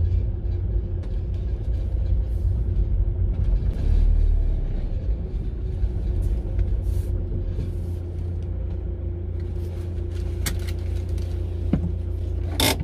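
VW Caddy van's engine and low road rumble, heard from inside the cab, as the van rolls slowly into a parking spot. A few short clicks come near the end, the sharpest just before it stops.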